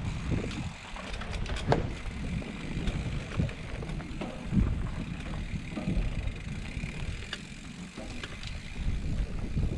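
Mountain bike riding down a dirt flow trail: wind rumbling on the microphone over tyre noise, with scattered sharp clicks and rattles from the bike.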